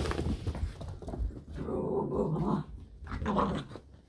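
A dog growling in two stretches, the first about a second long and the second shorter, after some scuffling.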